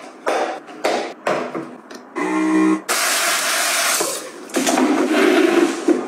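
Toiletry bottles being handled and set into a wire caddy: a quick run of short knocks and clatters, a brief pitched squeak about two seconds in, then two stretches of steady hissing rustle.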